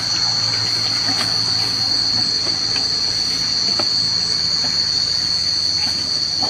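Cicadas droning in the surrounding trees: one steady, high-pitched buzz held without a break, over a low hum.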